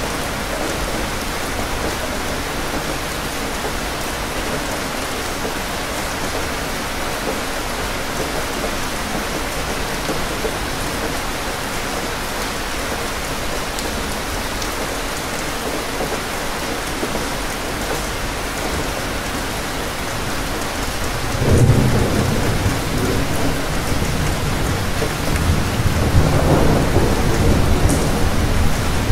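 Steady rain falling, with thunder rumbling in suddenly about two-thirds of the way through and again near the end.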